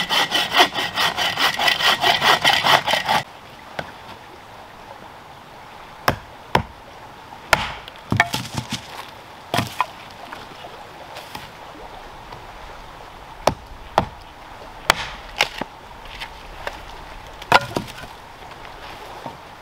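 Bow saw cutting through a log in quick, even strokes, stopping about three seconds in. Then a string of sharp wooden knocks, a second or so apart, as sawn pieces of firewood are picked up and dropped on the pile.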